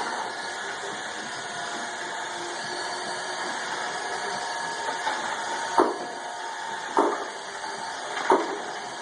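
Small electric fans and servo wheel motors of a homemade vacuum robot running with a steady whir and whine. Three sharp knocks come in the second half, about a second apart.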